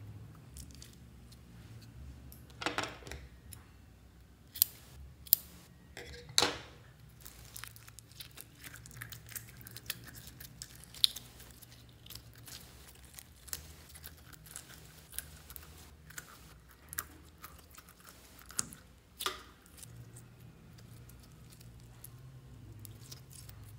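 Slime being squeezed and stretched by hand: irregular sticky clicks, pops and squelches, with a few sharper snaps, over a low steady hum.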